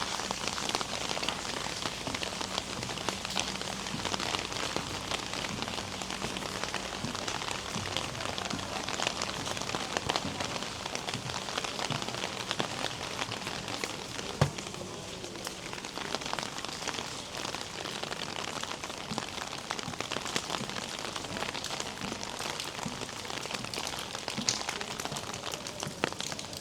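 Steady rain falling, a dense patter of drops, with a single sharp knock about halfway through.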